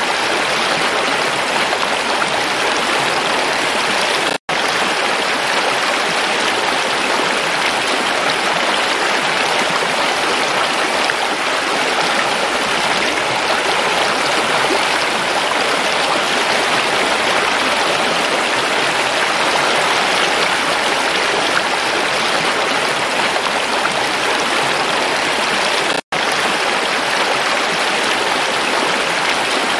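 Shallow rocky mountain stream rushing over stones: a steady hiss of flowing water, cut by two split-second dropouts, about four seconds in and near the end.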